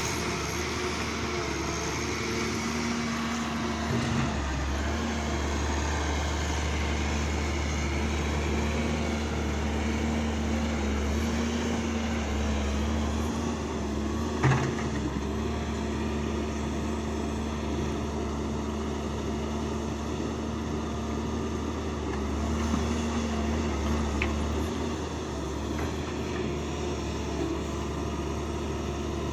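Excavator's diesel engine running steadily, its low rumble growing stronger from about four seconds in until near the end, with a single sharp clank about halfway through.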